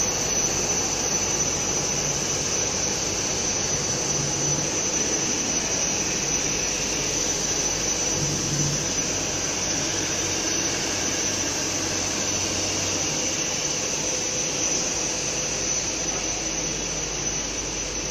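Steady din of running factory machinery around a dual-extruder plastic extrusion line, with a thin, steady high whine over it.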